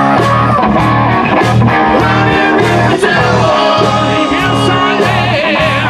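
Classic rock music from a guitar, bass and drums band, playing with a steady beat.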